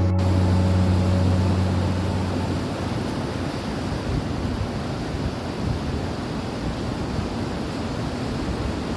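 A steady rushing noise, fairly loud and even, with low held notes from a music track fading out over the first couple of seconds.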